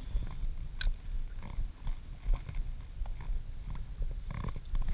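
Wind buffeting the microphone and small waves slapping against the float tube, making an uneven rumble with a few light knocks and one sharp click about a second in.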